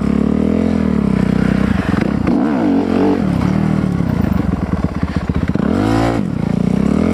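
Dirt bike engine running near idle and revved up and back down a few times, with the pitch swelling about half a second in, around two and a half seconds in, and again near the end.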